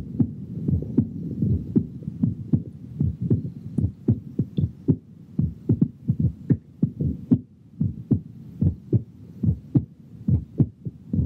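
Heartbeat picked up by a ThinkLabs One digital stethoscope and played through a loudspeaker: a steady run of low lub-dub thumps with a faint hum under them.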